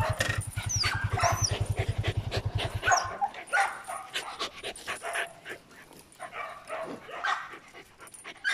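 A dog whining and yipping again and again, over a Yamaha Sniper motorcycle's single-cylinder engine idling with an even low throb that stops abruptly about three seconds in.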